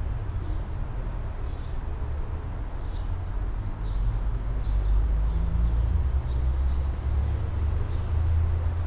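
Tram standing at the platform, its onboard equipment giving a steady low hum that grows louder about four seconds in. A quick run of quieter high chirps repeats above the hum.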